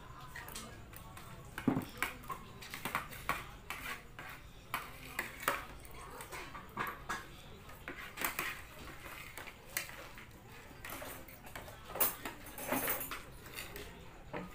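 Spoons and forks clinking and scraping against plastic plates while children eat, a run of quick, irregular clicks.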